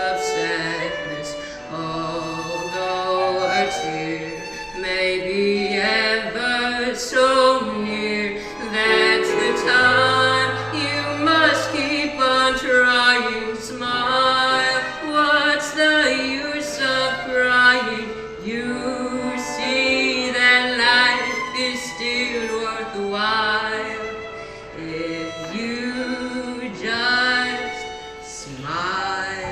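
A boy singing a song in a high, opera-like voice, holding notes with a wavering pitch, over instrumental accompaniment.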